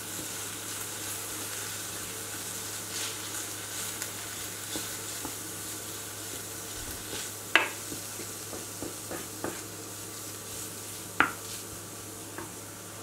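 Chopped mushrooms and onions sizzling in oil in a frying pan while a wooden spoon stirs through them to work in a little flour, with scattered light scrapes and taps and two sharper knocks of the spoon against the pan in the second half.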